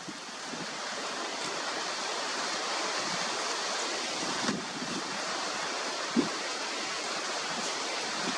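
Steady rushing wind noise, with two brief soft thumps about four and a half and six seconds in.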